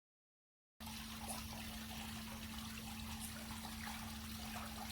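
Faint trickling water at a pool, with a steady low hum underneath, cutting in suddenly just under a second in after dead silence.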